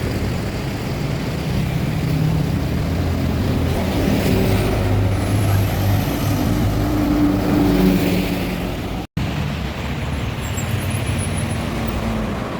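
Large diesel bus engine running at low revs among other traffic, with the sound cutting out for an instant about nine seconds in.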